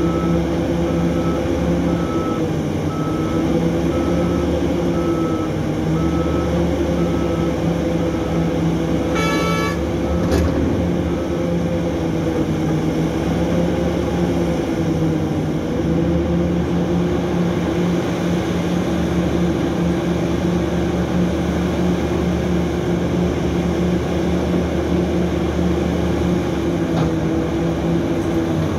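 Big diesel engines of a Hitachi 3600 mining excavator and a haul truck running steadily. The truck's reversing alarm beeps at an even pace, about twice a second, for roughly the first nine seconds, then a short horn blast sounds.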